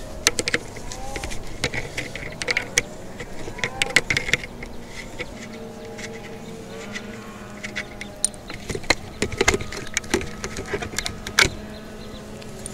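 Pliers and small metal lock parts clicking and tapping as a broken thumb lock is worked out of a camper's exterior compartment door: a run of sharp, irregular metallic clicks.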